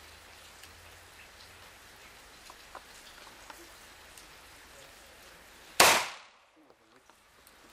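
A single pistol shot about three-quarters of the way through, sudden and much louder than anything else, after a few seconds of quiet range background with faint clicks.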